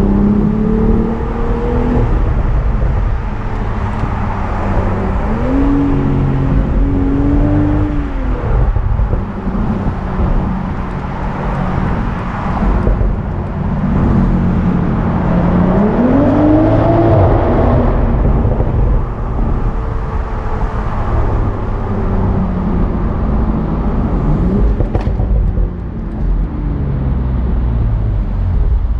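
BMW Z4 M40i's turbocharged 3.0-litre inline-six under way: the engine note rises and falls as the car accelerates, shifts and eases off, with a sharp climb about five seconds in and again around the middle, over steady road and wind noise.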